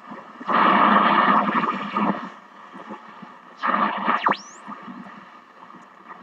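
RCA M-45 vacuum-tube radio's speaker giving bursts of static as the dial is tuned, with a whistle near the end of the second burst that sweeps down and then sharply up in pitch.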